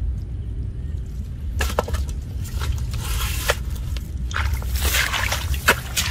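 Repeated irregular splashing and squelching in muddy water, starting about a second and a half in, over a steady low rumble.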